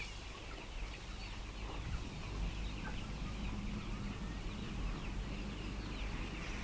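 Flock of Giriraja chickens clucking and cheeping together, many short overlapping high calls, over a steady low rumble.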